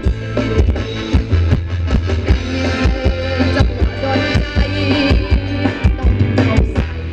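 Live band playing upbeat Thai ramwong dance music, instrumental with no singing: a steady drum-kit beat under bass and electric guitar.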